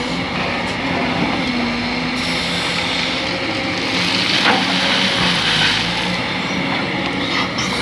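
Excavator's diesel engine running steadily under working load, with a couple of short knocks or scrapes from the bucket and material, one about halfway through and one near the end.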